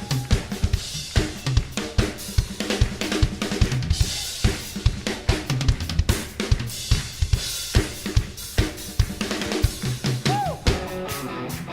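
Music: a fast drum-kit beat with kick, snare and cymbals over a bass line.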